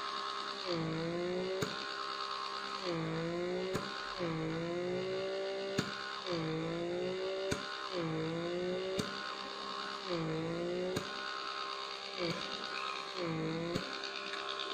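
Handheld facial vacuum's small suction motor running with its nozzle on the skin. Its hum dips in pitch and recovers over and over, about every one and a half to two seconds, with a short click in most cycles.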